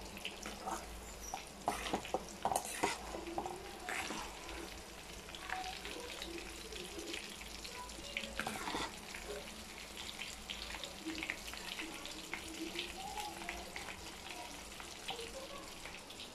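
Chicken pieces deep-frying in hot oil in a steel pot: a steady sizzle dense with small crackles and pops. A few sharp knocks stand out about two seconds in.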